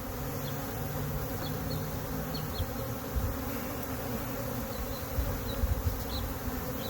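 A swarm of honey bees buzzing all around, a steady, dense hum of many wings. A few low bumps sound under it.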